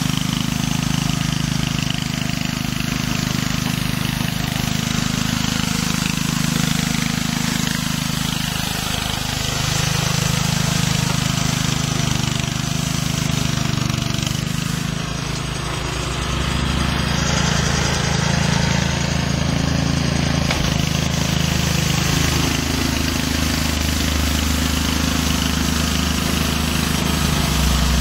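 Small petrol engine of a walk-behind radial-brush sweeper running steadily, its speed dipping and rising a few times midway.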